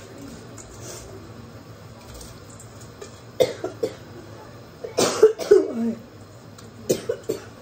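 Short clusters of sharp knocks and rasping bursts, starting about three and a half seconds in and coming again near the end: a steel bowl knocked against a cooking pot's rim as soaked rice is tipped into boiling water, with coughing among them.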